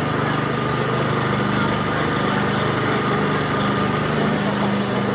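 Steady mechanical drone, like a motor running at a constant speed, with a thin steady whine above it.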